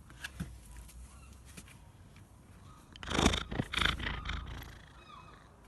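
Snoring: one loud, noisy snore about three seconds in, rising in two pulses over about a second and a half. A few faint clicks come before it.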